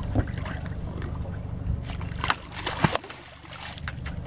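A hooked catfish splashing at the water's surface beside a boat, with several short, sharp splashes over a steady low hum.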